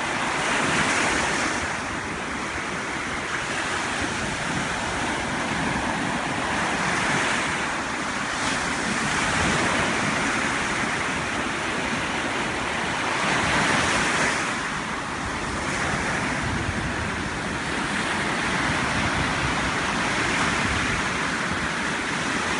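Ocean surf breaking and washing in the shallows, a steady rush of water that swells and eases as each wave comes through.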